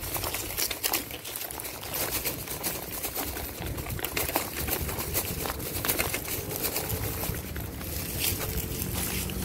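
Footsteps crunching over dry leaves and ballast on a railway track bed, an irregular crackle of small snaps. A motor vehicle's engine hum comes in near the end.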